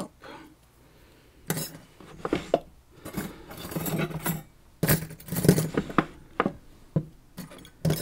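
Small metal pins and parts of a Banham pin-tumbler lock cylinder clinking and clattering irregularly as the lock is taken apart, starting about a second and a half in.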